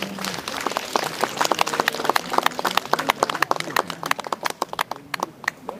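A small crowd of spectators clapping, thinning out and dying away near the end.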